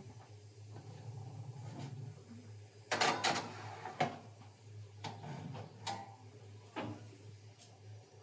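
Countertop electric oven's glass door pulled open with a loud metal clatter about three seconds in, a baking tray slid onto the wire rack with a few sharp clicks, and the door shut again, over a steady low hum.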